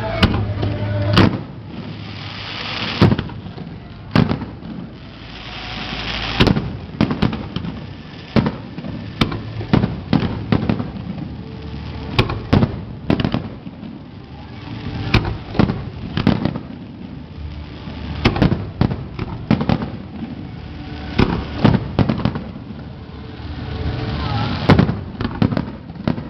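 An aerial fireworks display: shells bursting in a string of sharp bangs at uneven intervals, over a hissing crackle from the bursts that swells and fades.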